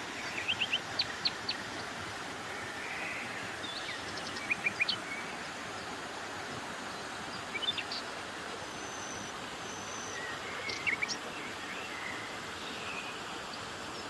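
Steady rushing of flowing stream water, with short bird chirps breaking in as several brief clusters.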